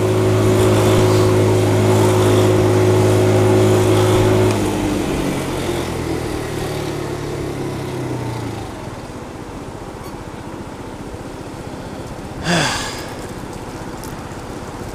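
A vehicle engine idling with a steady hum, which drops lower and quieter after about four and a half seconds and dies away a few seconds later, leaving steady street noise. About twelve and a half seconds in there is one brief, sharp sound that rises in pitch.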